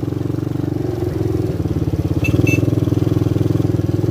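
250cc Lida ATV engine running steadily under way, with a fast even firing pulse; it pulls a little harder about two seconds in. Two very short high chirps sound just after that.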